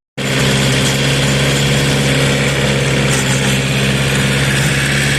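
Engine of a tilling rig running at a steady speed with a constant low hum while tilling soil, starting just after a brief cut at the very beginning.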